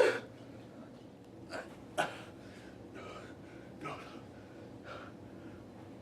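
A person's short breathy sounds, about six of them, spaced roughly a second apart.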